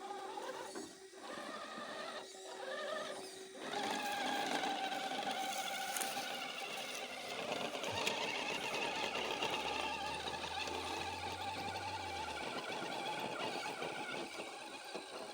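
RC rock crawler's electric motor and gear drivetrain whining under throttle, a steady whine that wavers a little in pitch.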